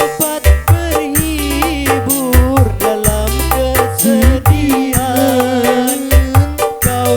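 Live dangdut music from an orgen tunggal (single-keyboard) setup: a bending, ornamented melody line over a steady bass and drum beat.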